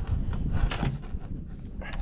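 Wind buffeting the microphone as a low, uneven rumble, with a few short knocks.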